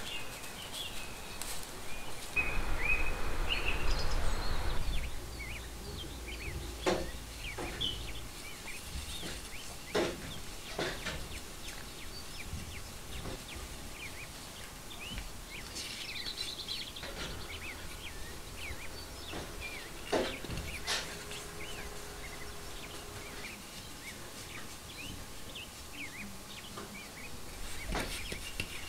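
Small birds chirping on and off, with a few seconds of rushing noise and low rumble about two seconds in and scattered soft knocks and clicks later on.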